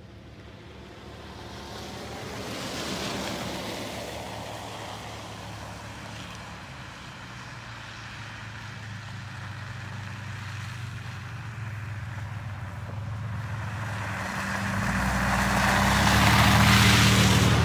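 Traffic on a snow-covered road: a fainter swell of tyre hiss about three seconds in, then a pickup truck approaching. Its engine hum and the hiss of its tyres through the snow grow steadily until it passes close, loudest near the end.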